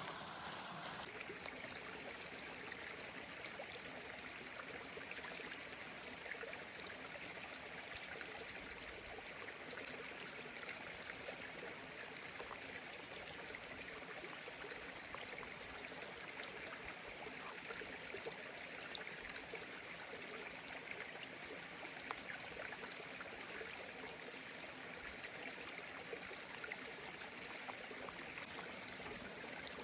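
A creek flowing, a steady rushing of water.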